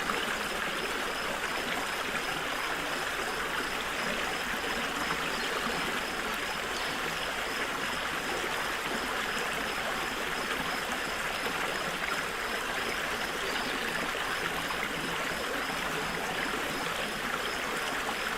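A small forest stream running over stones, a steady rush and babble of water.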